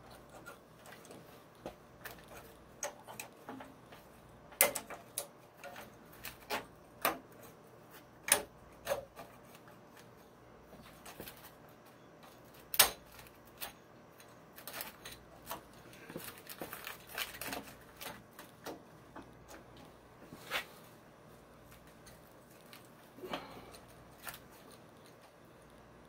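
Irregular clicks, taps and rustling of hands working stiff, heavy-gauge wires and a new thermostat into an electric water heater's access compartment, with a few sharper knocks among them.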